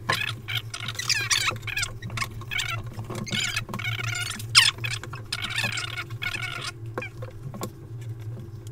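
Paper sheets and craft materials rustling and crinkling as they are handled on a table, with a few small clicks, over a steady low hum.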